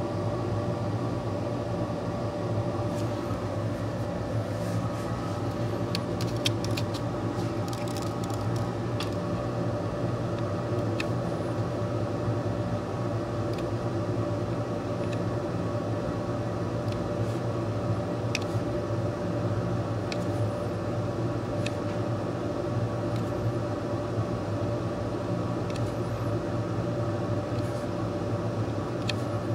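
Steady machine hum made of several even tones, like a fan or motor running, with a few faint light ticks scattered through it.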